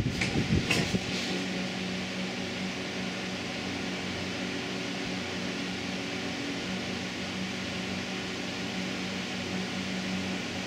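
Steady machine hum with a low, even tone, like a running fan. A couple of sharp knocks in the first second.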